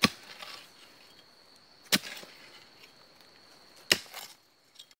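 Three sharp thuds about two seconds apart, each with a short crunch of soil and roots, as a long digging pole is jabbed down into the earth to open up a burrow. A faint steady high-pitched whine runs behind.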